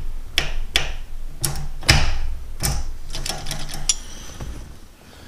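LMR Econoshift short-throw shifter on a T-5 manual gearbox being moved through the gears: a string of sharp metallic clicks and clunks, about one every half second, as the lever snaps into each gate. The clicks stop about four seconds in.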